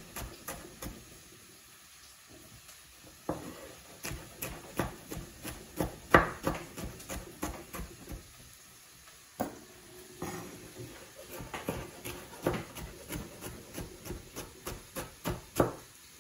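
Chef's knife slicing artichokes into thin strips on a wooden cutting board: runs of quick knocks of the blade striking the board, broken by two short pauses.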